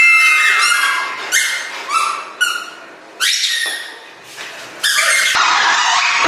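Squeaky toys tied to players' feet squeaking with each step, a rapid run of short high squeaks that grows denser near the end.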